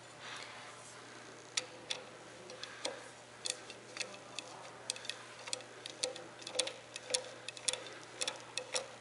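Ratchet of a socket wrench clicking in short, irregular runs of single clicks and pairs as the small oil filter cover bolts on a Yamaha YZ250F engine are run in snug.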